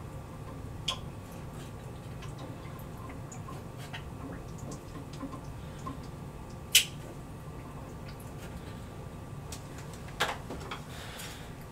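Small scattered clicks and taps of a plastic Aqua-Leash stirrer knocking against a plastic Sea-Monkeys tank as the water is stirred, with one sharper click about two-thirds of the way through, over a faint steady hum.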